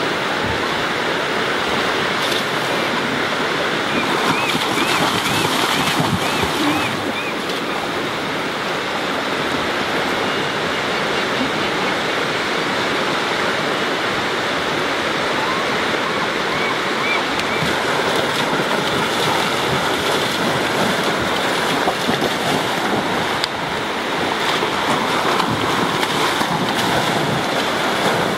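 Shallow river current rushing steadily over gravel, with splashing as a grizzly bear charges through the water near the end.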